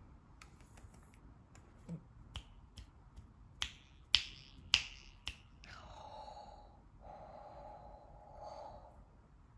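A person snapping their fingers, about five sharp snaps roughly half a second apart, the loudest near the middle. They are followed by a steady drawn-out tone lasting about three seconds, broken once.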